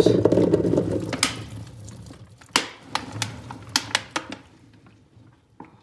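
Brine-cured black olives and their brine pouring from a cut-open plastic jug into a plastic basin: a dense clattering rush at first that thins out into scattered clicks of single olives dropping in, dying away near the end.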